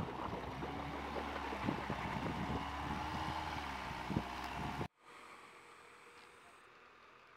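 Land Rover Freelander 2 driving through a pond: engine running with its pitch rising and falling under loud rushing and splashing water. About five seconds in the sound cuts off suddenly to a much quieter background.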